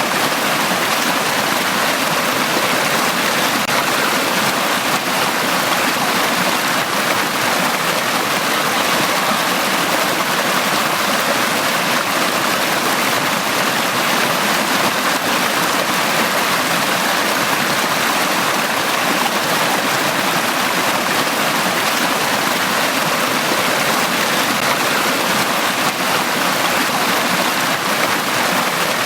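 Valley stream flowing over rocks: a steady, even rush of water that neither swells nor breaks off.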